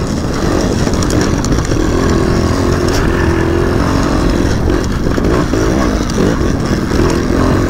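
A 300 cc two-stroke enduro motorcycle engine running under load as the bike climbs a steep grassy slope. The note wavers slightly up and down with the throttle.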